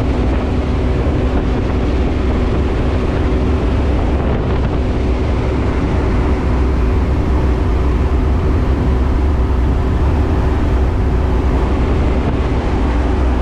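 Light propeller plane's engine and propeller droning steadily, heard from inside the cabin in flight, with a constant rush of air over the fuselage.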